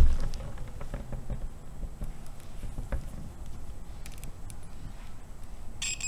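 Handling noise of test probes and a coiled cable, with a knock at the start and a few light clicks. Near the end a digital multimeter's continuity beeper starts a steady high-pitched beep, showing that the crimped SDI cable conducts through.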